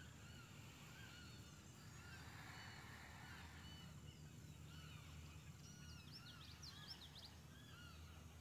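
Near silence with faint bird calls: many short chirps throughout and a quick run of higher notes about six to seven seconds in.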